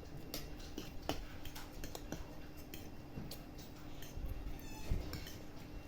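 Scattered light clicks and clinks of tableware being handled during a meal, with a short burst of fast ticking near the end, over a faint steady hum.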